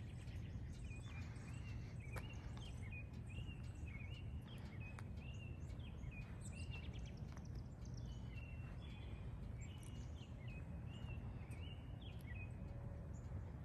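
A songbird chirping in a long run of short, quick notes over a steady low background rumble.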